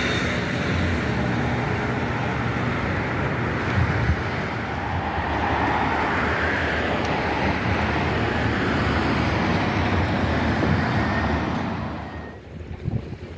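Road traffic going by as a steady rush with a low rumble, falling away sharply near the end.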